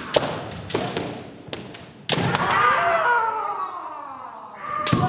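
Kendo practice: sharp cracks of bamboo shinai strikes and thuds of stamping footwork on a wooden dojo floor, with drawn-out kiai shouts, a long one falling in pitch about two seconds in and another near the end.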